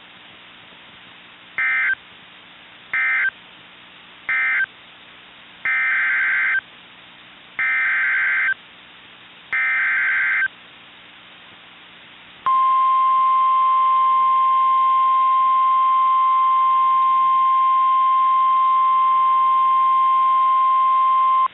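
NOAA Weather Radio Emergency Alert System digital data bursts: three short buzzing SAME end-of-message bursts, then three longer SAME header bursts, each about a second apart. About twelve seconds in, the steady single-pitched warning alarm tone sounds for about nine seconds, announcing a new severe thunderstorm warning.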